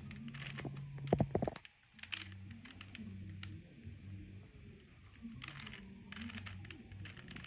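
Rubik's cube being turned by hand: quick, irregular plastic clicks and clacks as the layers rotate, with a cluster of louder clacks about a second in. A faint low hum sits underneath.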